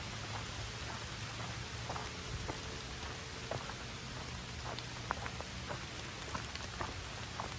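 Rain falling steadily, with scattered sharp ticks of individual drops landing close by.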